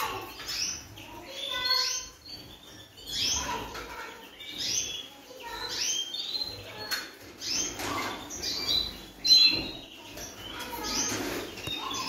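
Many small caged songbirds chirping and calling over one another in quick, overlapping bursts, with wings fluttering in the cages and a sharper rustle or knock about nine seconds in.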